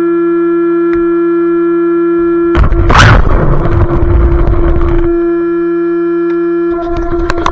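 A loud, steady pitched tone with overtones, held without wavering. About two and a half seconds in, a loud burst of noise covers it for a couple of seconds, and clicks and noise come back near the end.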